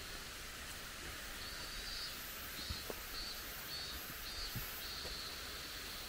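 Insects calling: a steady high buzz that breaks into a pulsing rhythm for a few seconds in the middle, then runs steady again, with a few soft footfalls underneath.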